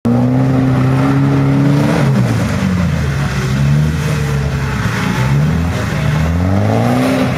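Land Rover Defender's engine revving under heavy load as the 4x4 crawls through and climbs out of a deep dirt trench, its pitch rising and falling several times with the throttle.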